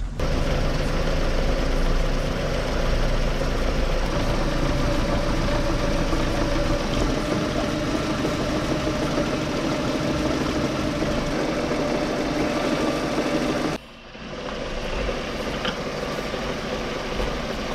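VW Polo 6N2's 1.0 MPI petrol engine idling steadily, run with the heater on hot while the freshly refilled cooling system bleeds out its air.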